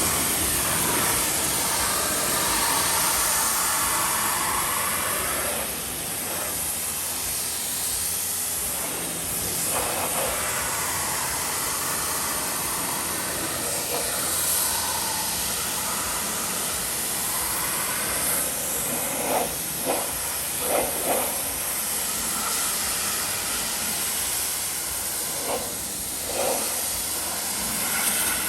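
Steady hissing spray of liquid onto a car's body, its tone slowly rising and falling as the spray moves, with a few short spatters about two-thirds of the way through.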